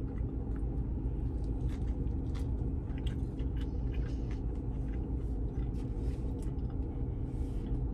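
Steady low hum of a vehicle running, heard inside its cabin, with faint scattered clicks of chewing.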